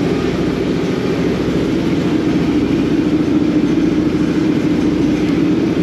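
Tugboat engine running steadily at a constant speed, a loud, even drone with a fast, dense pulsing.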